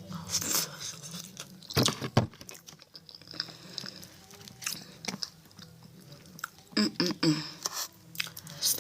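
A person biting into and chewing food, with irregular sharp bites and mouth sounds; the loudest bites come about two seconds in and again around seven seconds.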